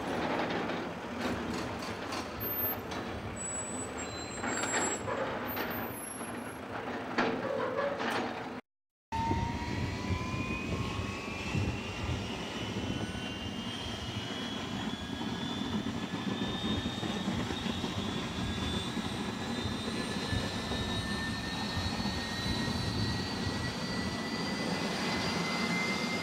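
Scattered clicks and knocks of hangar ambience, then after a cut a Puma-family helicopter's turboshaft engines starting up: a whine that rises slowly and steadily in pitch as the turbines spool up and the main rotor begins to turn.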